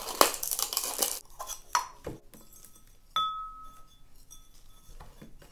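Potting sounds: soil and pots being handled and rustled, a few small knocks, then about three seconds in a sharp clink of terracotta pots knocking together that rings briefly.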